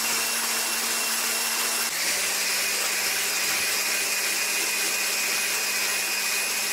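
Electric hand blender with a whisk attachment running steadily as it whips a cream and condensed-milk mixture. Its pitch drops slightly about two seconds in.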